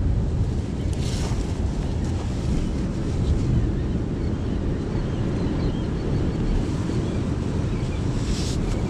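Steady low wind rumble buffeting the microphone, with sea surf washing on the rocks. A brief hissing surge comes about a second in and another near the end.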